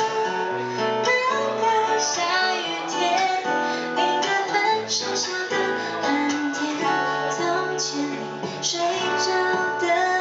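A woman singing a slow song while strumming a steel-string acoustic guitar, her voice amplified through a vocal microphone.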